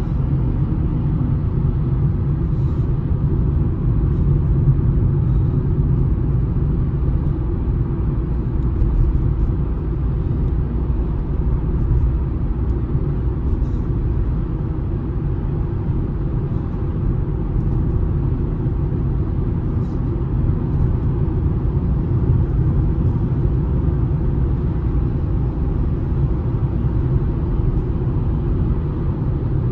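Steady low rumble of a car driving, heard from inside the cabin: tyre and engine noise.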